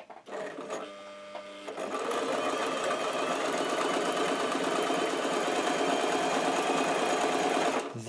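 Brother JS-23 household sewing machine stitching through fabric. It starts slowly, picks up speed about two seconds in, runs steadily, and stops just before the end. It runs without knocking now that its jammed shuttle hook has been freed and cleaned.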